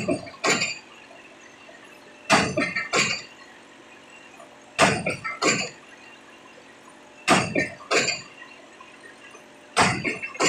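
Hydraulic impact pile hammer driving a precast concrete (PHC) spun pile: sharp metallic clanks in pairs about half a second apart, repeating about every two and a half seconds.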